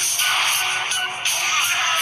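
A preloaded ringtone playing on a Samsung GT-I5500L mobile phone: a short electronic tune made of repeating phrases with brief breaks between them, thin and with almost no bass.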